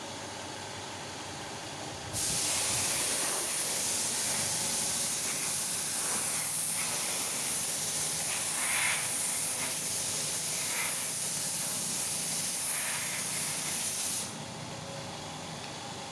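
Paint spray gun hissing steadily, switched on suddenly about two seconds in and cut off about twelve seconds later.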